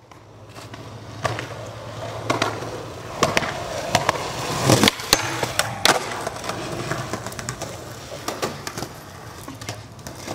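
Skateboard wheels rolling on concrete, with a string of sharp clacks and knocks from the board, the loudest about five seconds in.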